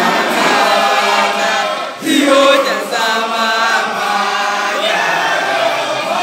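Isicathamiya choir of men singing unaccompanied in close harmony, with a short break about two seconds in.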